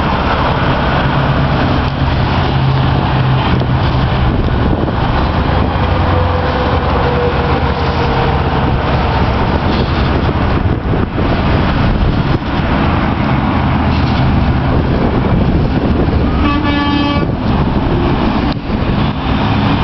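Semi-truck diesel engine running steadily as the tractor-trailer pulls away, with a single short horn blast near the end.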